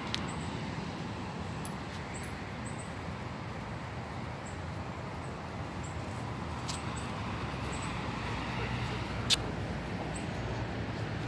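Steady outdoor background noise with a faint low rumble like distant traffic, broken by a few sharp clicks, the loudest about nine seconds in.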